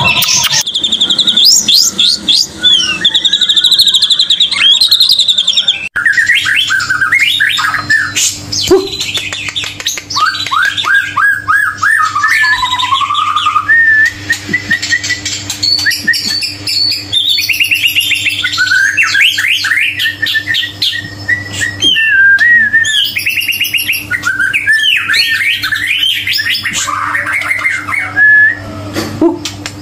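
White-rumped shama (murai batu) singing a long, varied song of clear whistles, fast repeated trills and chattering phrases. From about six seconds in, a low steady hum runs beneath the song.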